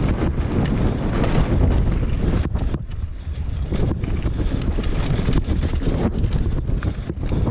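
Wind buffeting the microphone of a downhill mountain bike ridden fast over a dirt and gravel trail, with the tyres rolling and frequent sharp knocks and rattles from the bike over bumps and stones.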